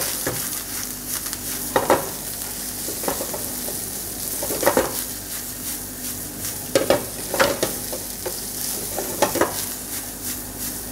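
Fried rice sizzling in a hot nonstick frying pan over a high gas flame as it is tossed and stirred, with sharp clatters from the pan and spatula every two seconds or so.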